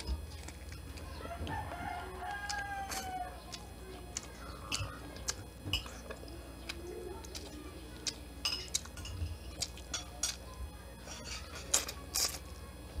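A rooster crows once, about a second in, the call lasting about two seconds and dropping in pitch at the end. After it come sharp clicks and snaps of shrimp shells being peeled and eaten, loudest near the end.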